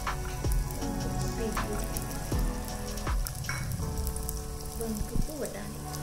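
Diced vegetables tipped into an aluminium pressure cooker, pattering and knocking onto the vegetables already in the pot in several light clatters, over soft background music.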